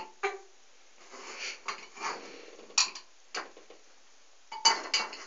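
A spoon and small cup handled by a toddler: irregular light clinks, taps and scrapes, with a quick cluster of clicks near the end.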